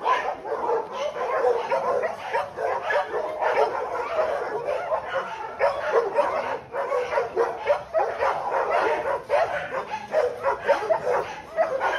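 Several kennel dogs barking, the barks coming thick and overlapping without a break.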